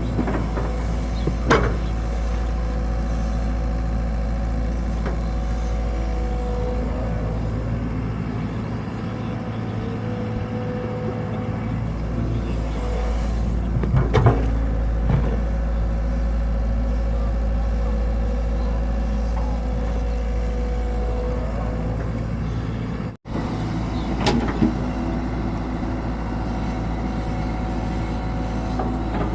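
Excavator's diesel engine running steadily, with a few sharp metallic knocks from the machine working.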